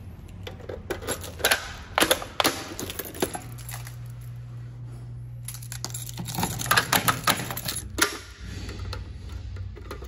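Irregular sharp clicks and light metallic clatter in two bursts, with a low steady hum lasting about three seconds between them.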